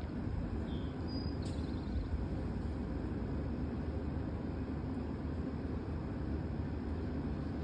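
Steady, low outdoor rumble with no distinct events.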